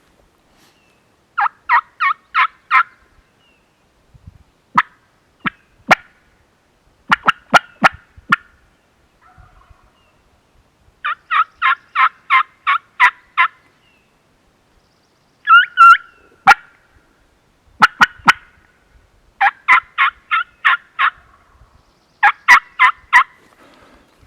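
Hen turkey yelps on a hunter's turkey call, close and loud. Runs of five to eight quick, evenly spaced notes are broken by a few single sharp cuts, meant to pull a gobbler in.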